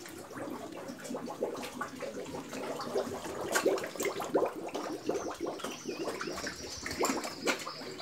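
Pigs eating wet feed from a trough: irregular slurping and smacking of snouts in the sloppy mash.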